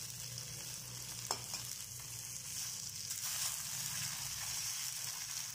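Oil sizzling steadily as steamed black-eyed pea dumplings (funke) shallow-fry to a crisp in a small steel kadhai, stirred and turned with a wooden spatula. A single sharp knock about a second in.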